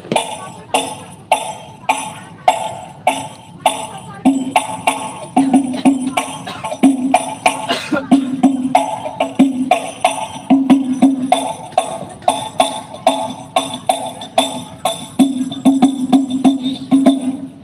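Sholawat devotional music played through a large outdoor PA system for a sound check: a steady beat of frame-drum and tambourine-like strikes, about two a second, over a sung or instrumental melody.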